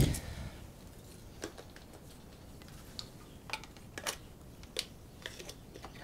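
A dull thump at the start, then scattered light clicks and metallic taps of jumper-cable clamps and a battery being handled and hooked up.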